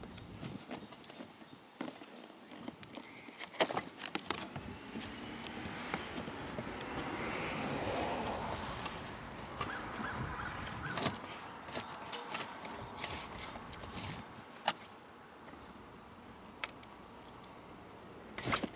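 Cardboard box being opened by hand: paper rustling and tearing, loudest a few seconds in, with scattered sharp clicks and knocks as the metal scissor jack inside shifts and slides out against the cardboard.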